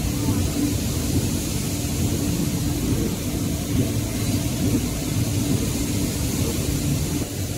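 Facial tissue production line machinery running: a steady low drone with a constant hum and a hiss above it.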